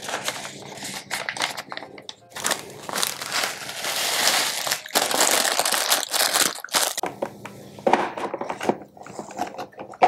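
A paper coffee filter being pressed into its filter cone and a plastic bag of loose-leaf tea being handled, crinkling irregularly. The crinkling is louder from about two seconds in.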